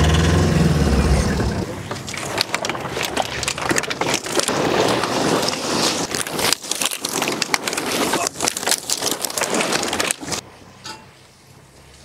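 A small pickup truck's engine running for about the first second and a half, then a long stretch of crackling and rustling as huge plastic sacks stuffed with plastic bottles are hauled and handled. The crackling drops away about ten seconds in.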